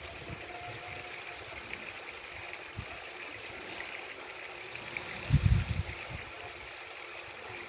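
Steady faint hiss of background noise, with a short dull low thump about five seconds in.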